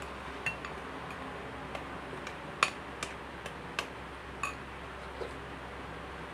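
Metal spoon clinking against a ceramic bowl while eating porridge: a series of irregular light clinks, the loudest about two and a half seconds in.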